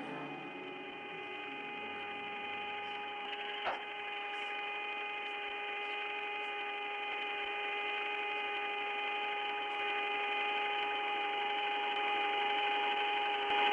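Radio-channel static: a steady hum over hiss, slowly growing louder, with a single click about four seconds in.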